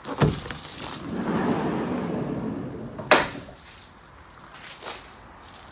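Side sliding loading door of a Peugeot Boxer van being opened: a click at the start, a rolling rumble for about two seconds as the door runs back along its track, then a sharp clack about three seconds in, with a lighter knock near the end.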